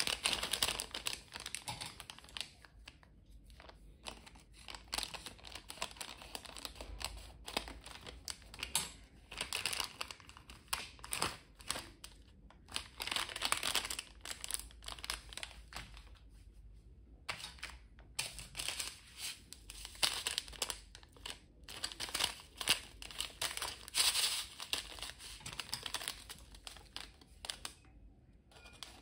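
Hands crinkling and squeezing a small plastic-foil snack sachet: dense, irregular crackling in clusters with short pauses between them.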